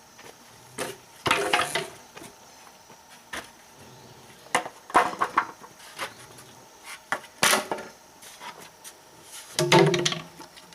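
Pieces of wood knocking and clattering against each other in several short bursts.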